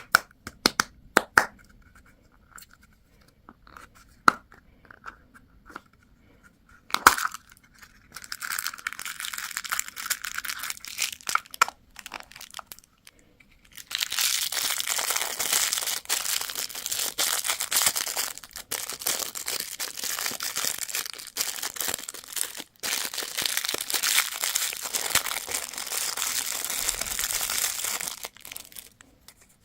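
Candy wrappers being crinkled and torn open by hand. A few sharp clicks and taps come first, then a crinkling rustle from about eight seconds in, which turns into loud, continuous crinkling and tearing about halfway through and stops shortly before the end.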